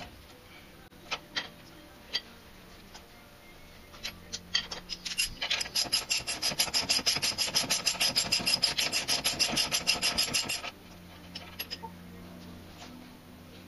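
A 21 mm socket unscrewing the lower ball-joint nut from the front control arm of a Citroën Grand C4 Picasso. A few separate clicks come first, then about five seconds of rapid, even rasping clicks, roughly nine a second, that stop abruptly as the nut comes free of the stud.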